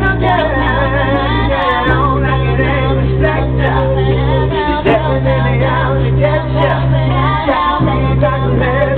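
Choir of mixed male and female voices singing a cappella, with a low bass line held in long notes under the moving melody.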